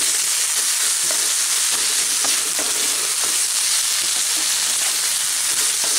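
Chicken mince and snake gourd flesh sizzling as they sauté in a frying pan, stirred with a wooden spatula that scrapes across the pan.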